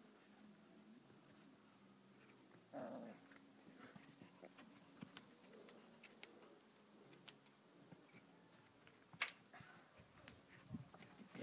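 Quiet, with faint sounds of Bouvier des Flandres puppies: a short, low puppy vocalisation about three seconds in, and scattered light ticks, the sharpest one just after nine seconds.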